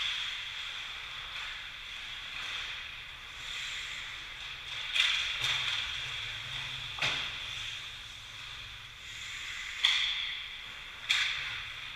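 Ice hockey play: skate blades scraping and hissing on the ice, broken by several sharp clacks of sticks and puck, the loudest about five and ten seconds in.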